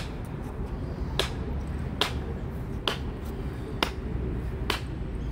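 Footsteps of someone walking, a sharp click about once a second in an even rhythm, over a low steady rumble.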